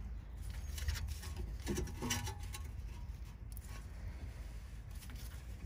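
Light metallic clicks and creaks from a rear brake caliper being handled while its handbrake-type piston is wound back in, over a steady low rumble.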